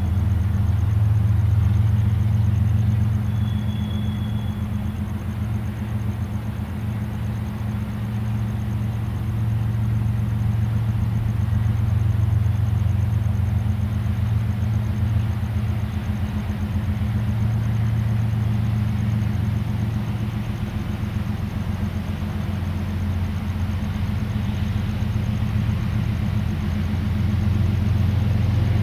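Diesel locomotives of a Florida East Coast Railway freight train working under power as they approach, heard as a steady low engine drone that slowly swells and eases.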